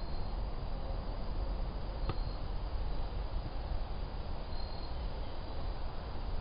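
Outdoor ambience: a steady low rumble with faint, brief high insect chirps, and a single click about two seconds in.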